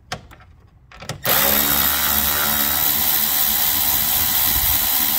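Cordless electric ratchet backing out a 10mm headlight bolt: a couple of light clicks, then about a second in the motor starts and runs steadily at one pitch.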